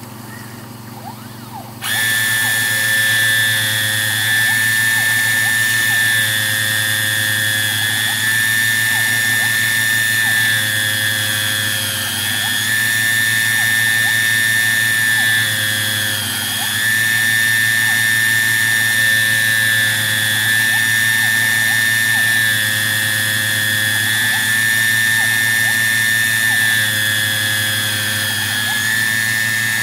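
Small high-speed milling spindle of a home-made CNC lathe, driving a disc cutter, starts with a high-pitched whine about two seconds in and runs steadily. Its pitch dips briefly about every four seconds as it takes each cut, milling a hexagon on the end of a brass bar, with a short lower tone between cuts.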